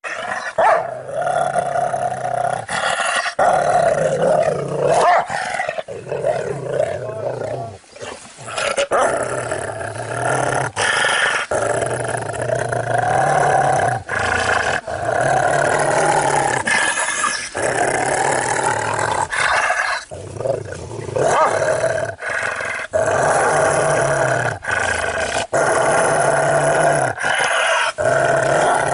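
Angry Pit Bull growling and barking almost without pause, in long rough snarls broken by short gaps.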